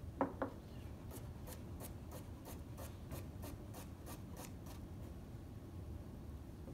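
Kitchen knife cutting a carrot on a cutting board on the diagonal (sifflet cut): two sharp knocks, then about a dozen evenly spaced chops at roughly three a second, stopping about five seconds in.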